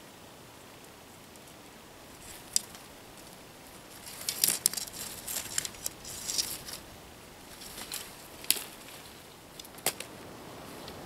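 Nylon tent fabric rustling and crinkling as it is spread out and handled, in short bursts with a few sharp clicks, the busiest stretch in the middle.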